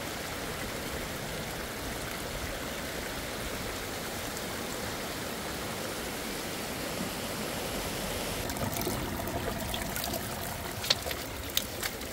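Water trickling steadily down a wet rock face. The sound thins a little past the middle, and a few sharp clicks come near the end.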